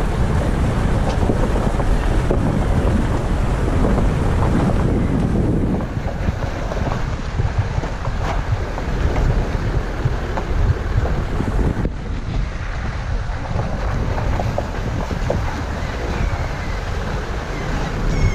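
Wind buffeting the microphone of a vehicle-mounted camera over the steady running noise of a four-wheel drive travelling on a gravel road.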